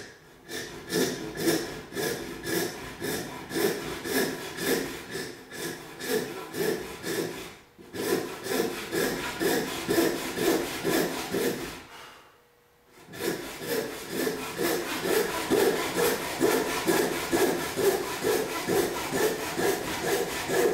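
An 18-inch rip back saw cutting down a tenon cheek in planed construction lumber, in steady push strokes about two a second. The strokes break off briefly about eight seconds in and pause for about a second around twelve seconds in.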